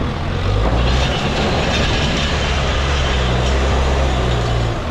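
Heavy diesel engine of a Case backhoe loader running hard under load with a steady low drone. It grows louder a little under a second in and eases off just before the end.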